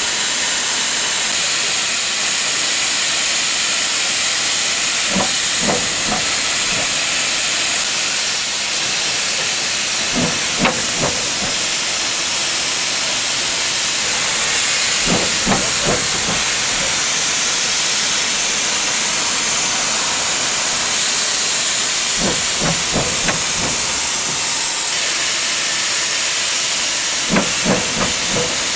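Steam locomotives hissing loudly and steadily as steam escapes. Small clusters of short knocks come every five seconds or so.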